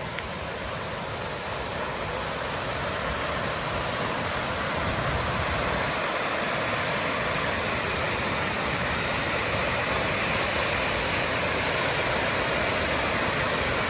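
Waterfall pouring, a steady rush of falling water that grows slightly louder over the first few seconds and then holds.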